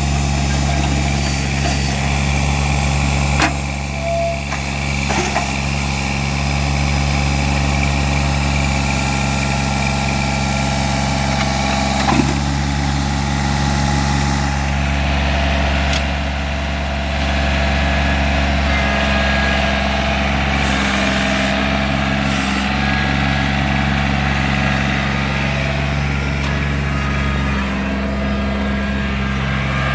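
John Deere 855 compact tractor's three-cylinder diesel engine running steadily at an even speed, with a few short knocks, one about three seconds in and one about twelve seconds in.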